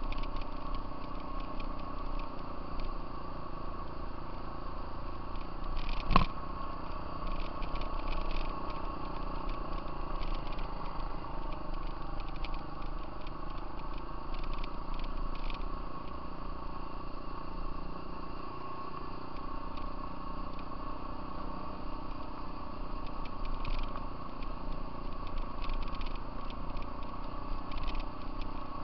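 Off-road vehicle engine running at a steady speed while riding on a gravel road, with loose gravel crackling under the tyres and frequent small rattles. A single sharp knock about six seconds in is the loudest moment.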